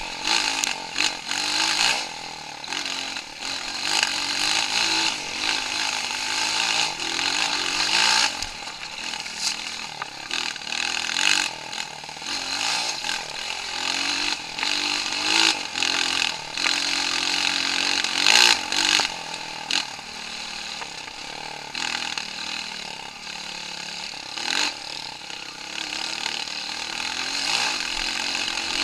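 Off-road trail motorcycle engine running under load as it is ridden, its note rising and falling with the throttle, over a steady rush of noise.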